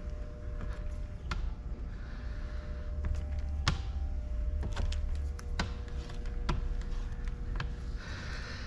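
A squeegee working over wet window tint film on car door glass, pushing the water out from under the film: soft rubbing strokes with scattered sharp clicks and taps, over a steady low hum.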